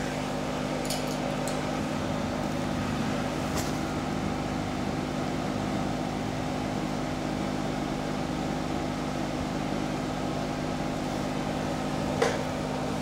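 Steady hum of a running machine, made of several fixed low tones, with a few faint ticks.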